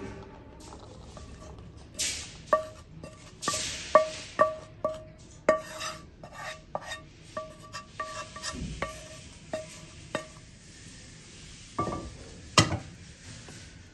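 Spoon clinking and scraping against cookware while handling cooked black chickpeas: many irregular taps, each with a short ringing tone, mixed with brief scrapes. Two louder knocks come near the end.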